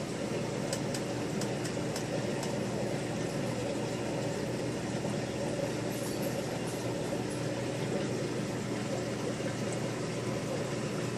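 Steady hum of running aquarium equipment, an air pump driving a bubbling filter, with no change in level.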